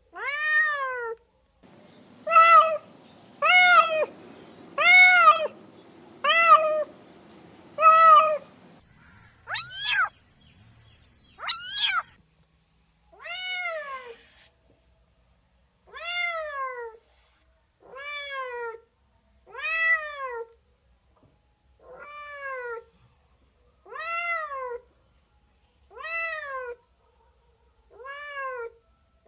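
Domestic cats meowing in turn: a long series of short meows, each rising then falling in pitch, about one every one to two seconds. Around ten seconds in come two higher, sharper meows, and after that an even run of meows.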